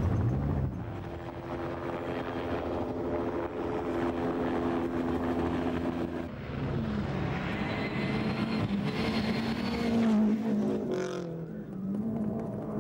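Vehicle engines running: a steady droning engine note for about the first six seconds, then a wavering engine note that swells to its loudest about ten seconds in.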